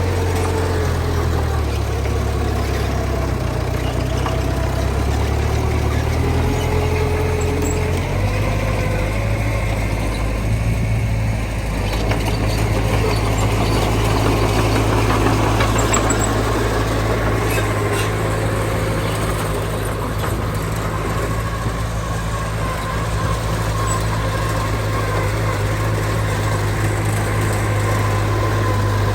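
Heavy diesel earthmoving machinery running continuously, its engine note shifting in the first eight seconds and then holding steady.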